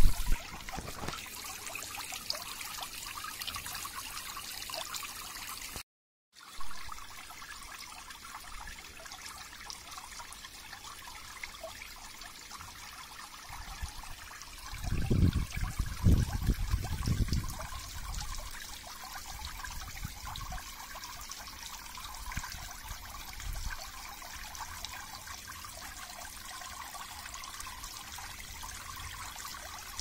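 Water trickling and splashing down stacked slate steps into a small garden pond, with the spray of a small fountain jet falling back into the water. It makes a steady splashing hiss. The sound cuts out for a moment near 6 seconds, and a few loud low rumbles come about halfway through.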